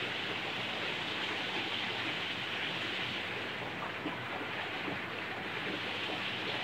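Steady rushing hiss of aquarium water circulating, with small scattered crackles and no change in level.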